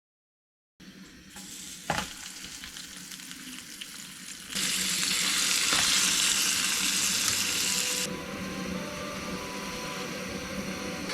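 Food frying in a pan, a steady crackling sizzle that gets louder for a few seconds about four and a half seconds in, then settles back.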